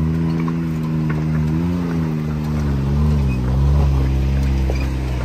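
Can-Am side-by-side engine run at low revs under light, varying throttle as it crawls up a rocky ledge. The pitch rises and falls gently with each push of the throttle.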